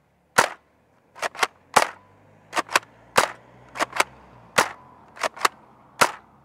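Nerf Eaglepoint dart blaster being primed and fired again and again: sharp plastic clacks come in repeating groups, a quick double clack then a single pop, about every second and a half, four or five times over.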